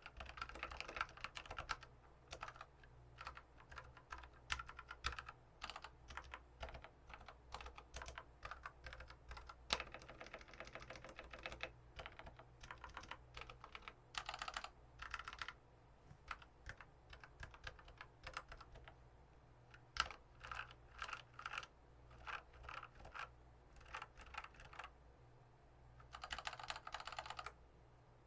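Mechanical keyboard with Feker Airy 67 g linear switches, lubed and with oiled springs, being typed on: uneven runs of key clacks, with a quick dense burst of keystrokes about halfway through and another near the end.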